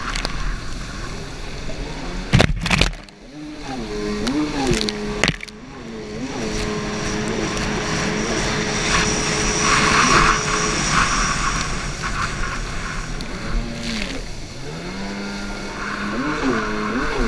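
Stand-up racing jet ski's engine running at speed, its pitch rising and falling as the throttle is worked through the turns, over rushing water spray and wind. Two heavy thumps come about two and a half seconds in, followed by a brief drop in the engine sound.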